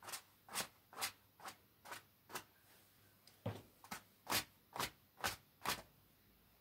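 Paintbrush making quick strokes across a canvas: about a dozen short swishes at roughly two a second, with a pause of about a second around the middle.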